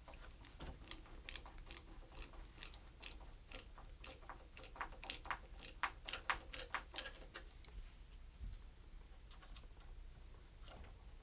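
Faint, irregular small clicks and rattles of a new door latch being handled and fitted into the edge of the door. They come thickest in the middle, with a few more near the end.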